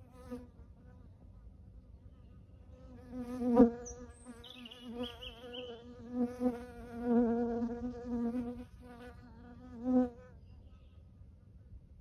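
A flying insect buzzing close by, a wavering wingbeat hum that comes in about three seconds in, swells and fades as it moves around, and stops about ten seconds in. A bird chirps briefly in the background.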